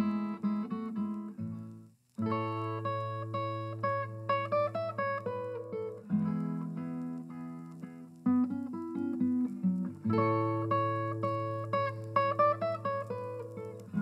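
Closing music: a plucked-string tune over long held low notes, with a brief break just before two seconds in.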